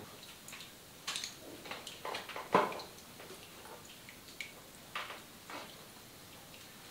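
Hands massaging a woman's neck and the back of her head: irregular soft rubbing and rustling of skin and hair with small clicks, the loudest about two and a half seconds in.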